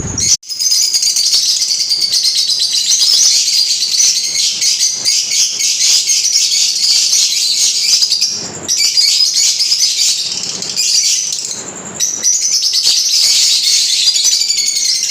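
Many small cage birds chirping and chattering together without a break, a dense high-pitched twittering, with short lulls about two-thirds and four-fifths of the way through.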